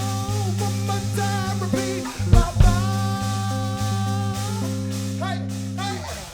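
Live band music: a singer holding long, wavering notes over guitar and a steady bass line.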